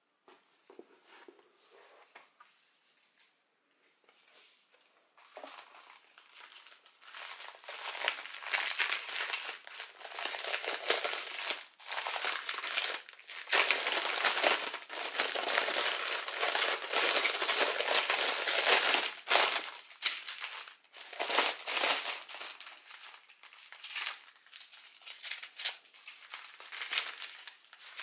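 Clear plastic packaging crinkling as it is handled: a plastic bag stuffed with small sealed packets of diamond-painting drills being lifted and turned over. The crinkling is faint and sparse at first, then loud and continuous from about a quarter of the way in.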